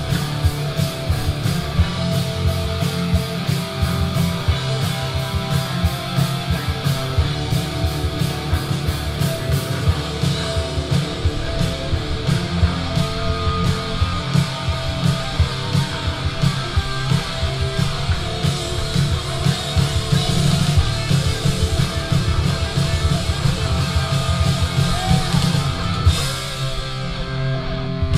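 Live rock band playing: electric guitars and bass over a driving drum kit. Near the end the drumming stops and the guitars and bass ring on held notes.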